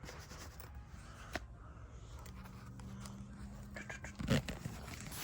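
Faint handling of a car lockout tool kit and its case, with a sharp click about a second and a half in and a short thump near the end.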